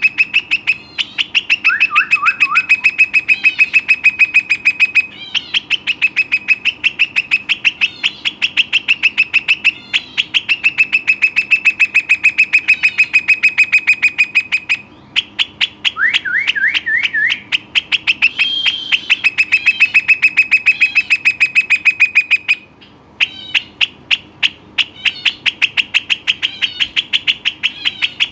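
A rock nuthatch singing loudly: long, rapid trills of one note repeated many times a second, each run lasting several seconds with short breaks between, and a few lower slurred notes mixed in.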